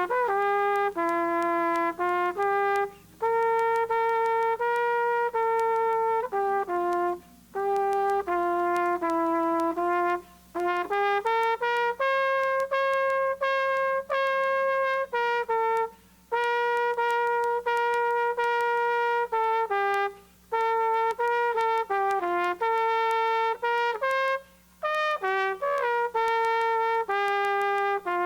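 A solo trumpet playing a slow melody in long held notes, phrase by phrase, with short breaks for breath between phrases.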